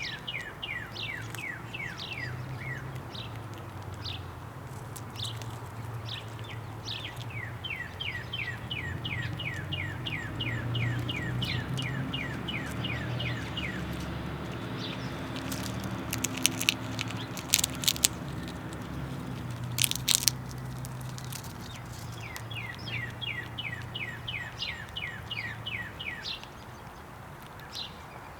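A songbird singing a rapid trill of short falling notes, about five a second, in three runs of several seconds each. A steady low rumble lies underneath, and a few sharp clicks or taps come about two-thirds of the way through.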